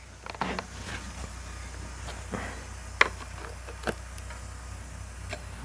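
A few separate light clicks and taps from handling and adjusting the chain tension on a Stihl MS 162 chainsaw, over a steady low hum.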